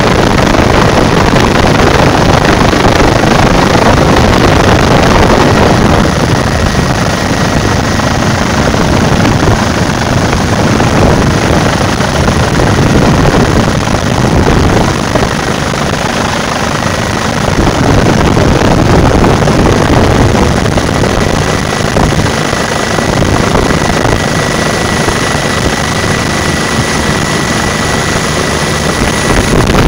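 Helicopter in flight, heard from on board: loud, steady engine and rotor noise with a faint steady whine.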